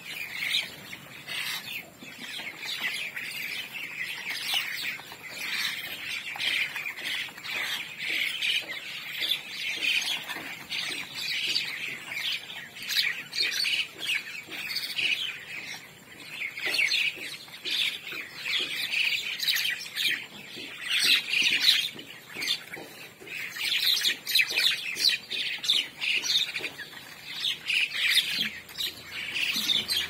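A large flock of mynas chattering and squawking, with many calls overlapping without a break.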